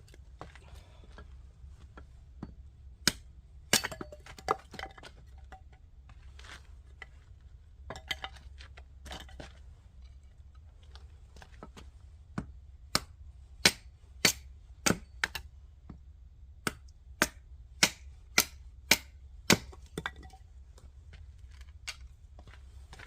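Oak firewood being broken apart: sharp cracking knocks, a few scattered at first, then a steady run of about two a second for some seven seconds.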